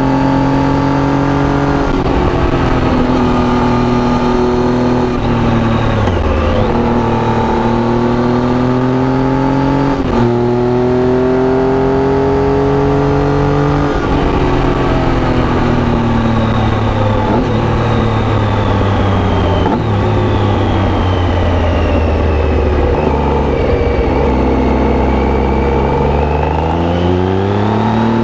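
2011 Triumph Tiger 800's three-cylinder engine through an Arrow aftermarket exhaust, with the revs rising and falling through several gear changes. The revs fall slowly for a long stretch in the second half, then rise again near the end.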